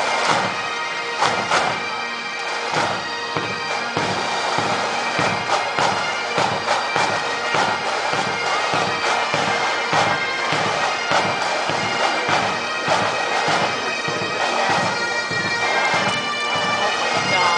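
Massed military pipes and drums playing: the bagpipes sound a melody over their continuous drone, and the drums keep a steady marching beat.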